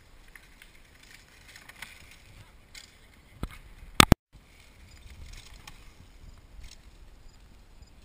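Quiet outdoor ambience on a small action-camera microphone, with a few faint scattered clicks. A sharp, very loud crackle comes about four seconds in, followed by a split-second dropout where the footage is cut.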